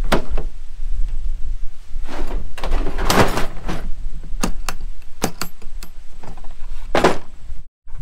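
Chevrolet pickup tailgate unlatched and lowered, then a run of sharp clicks and knocks as gear and toolbox latches are handled in the truck bed, over a steady low rumble.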